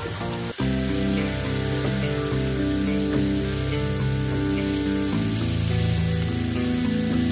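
Diced bell peppers and onion sizzling in oil in a frying pan as they are stirred with a wooden spatula, over background music.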